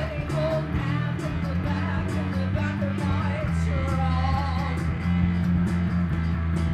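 Live rock band playing: electric bass holding low notes under keyboard synth and a steady beat, with a woman singing.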